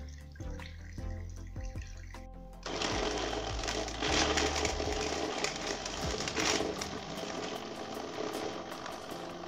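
A small electric motor starts abruptly about two and a half seconds in and runs steadily, over background music.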